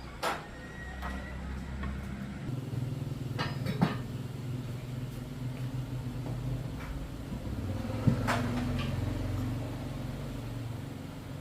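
A small engine running steadily at a low hum, with several sharp metallic clinks over it.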